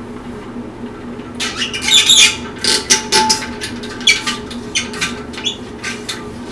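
Hand-pumped auto-siphon racking cane: its plunger worked up and down in a glass jug of beer, giving a quick run of short strokes, several a second, beginning about a second and a half in. This is the priming of the siphon, drawing beer up into the tube to start it flowing.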